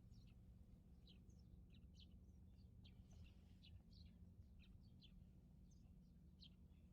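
Faint chirping of small birds, many short chirps a few times a second, over a faint steady low hum.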